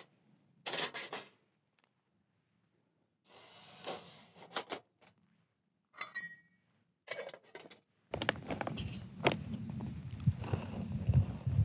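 Metal camping-stove parts and small tins being handled on rock: short scrapes, rubs and clinks. About eight seconds in, a steady low rumble with small crackles sets in as a titanium pot of water heats on the lit stove and begins to steam.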